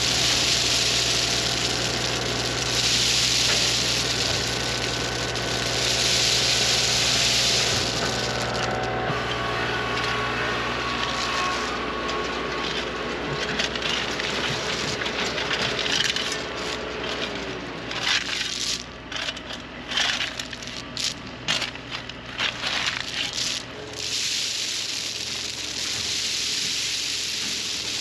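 Crushed rock pouring and rattling out of a tractor's front-loader bucket in several dumps, over the tractor's running engine. In the middle, a steel shovel scrapes and strikes into the loose gravel in a run of separate hits. Near the end another load of rock pours from the bucket.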